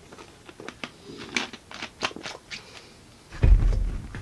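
Small clicks and taps of handling, then a dull low thump about three and a half seconds in.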